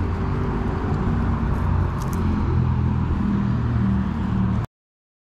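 Motor vehicle engine running nearby: a steady low hum whose pitch shifts slightly, cut off suddenly near the end.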